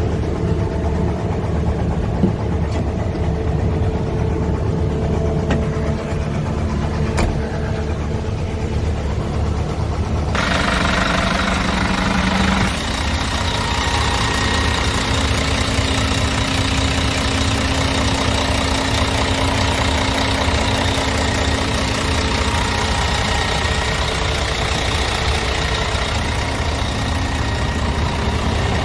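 Scania R tractor unit's diesel engine idling steadily, the sound turning brighter and hissier about ten seconds in.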